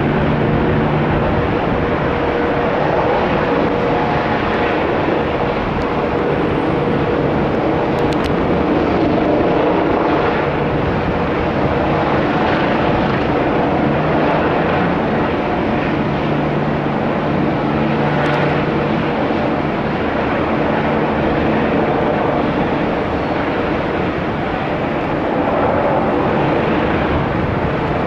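MBB Bo 105 helicopter in flight: a steady rotor and twin-turbine noise with a constant tone running through it.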